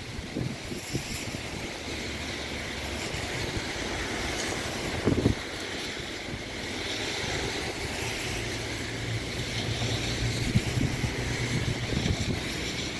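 Heavy rain falling in a squall line, a steady hiss, with wind buffeting the microphone in low thumps, the strongest about five seconds in. A low steady hum joins about eight seconds in.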